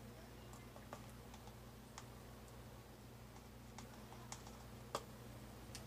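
Faint, scattered light clicks, roughly one a second, of a measuring spoon scooping and levelling baking powder in its can, over a low steady hum.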